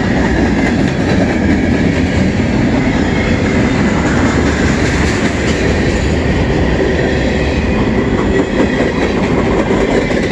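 Freight train's tank cars and covered hoppers rolling past at close range: a steady, loud rumble and clatter of steel wheels on the rails.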